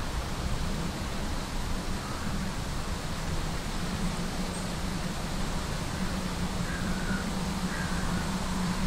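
Low, steady drone of a distant first-generation diesel railcar (a Class 121 'Bubble Car') as it approaches along the line, under a steady wind hiss.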